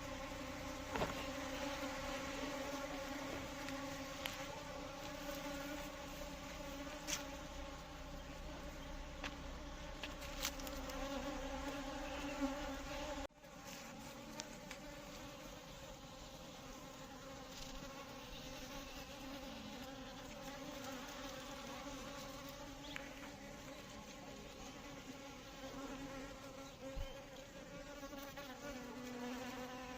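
Indian honey bees (Apis cerana indica) buzzing: a steady, droning hum with a low pitch and overtones above it. About 13 seconds in it breaks off abruptly and picks up again slightly quieter, with a few faint clicks here and there.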